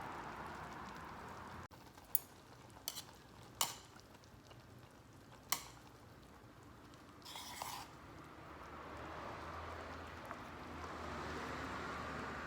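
Kimchi hotpot simmering in a metal mess tin, with four sharp clinks of utensils against the tin in the first half and a short scrape a little past the middle.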